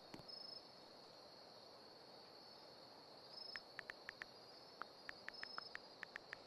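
Faint, steady high-pitched insect chorus. From about three and a half seconds in, a run of short sharp ticks comes a few times a second.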